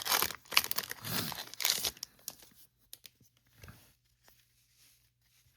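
Foil Pokémon TCG booster pack being torn open and crinkled, crackling for about the first two seconds, then a few faint clicks and rustles as it quiets down.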